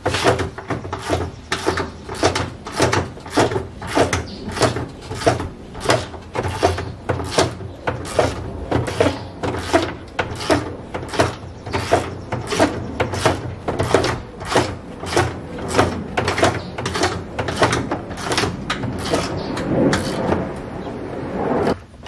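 Socket ratchet clicking in quick repeated strokes, about two to three a second, as it cranks the Ford Transit's underbody spare-tire winch to raise the spare.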